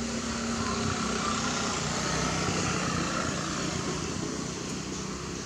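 A steady engine drone with a low hum over an even hiss. A faint, thin high-pitched sound comes and goes about a second in.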